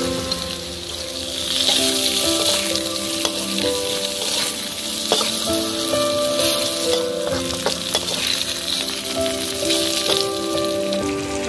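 Eggplant cubes and chili sambal sizzling in an oiled wok as a metal spatula stirs and scrapes them, with light clicks of metal on the pan. Background music plays underneath.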